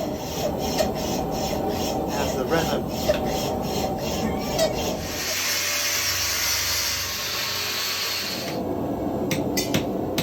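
Hand tool scraping metal in repeated rasping strokes, about two or three a second, then a steadier continuous rasp for a few seconds, with a few sharp clicks near the end.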